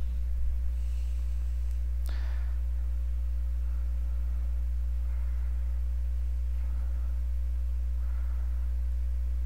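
Steady low electrical hum with evenly spaced overtones, unchanging throughout, with a faint brief noise about two seconds in.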